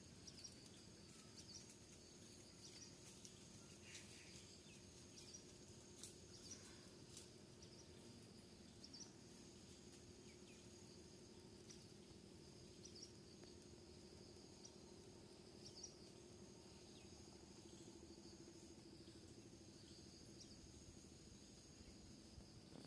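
Near silence: faint outdoor ambience with a steady high insect chirring and a few soft scattered chirps.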